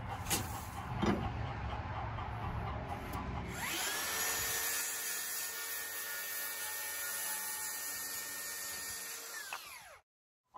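Cordless circular saw spinning up about four seconds in, running steady as it cuts through a 2x4 stud, then winding down near the end. Before it, a low rumble with a couple of faint clicks.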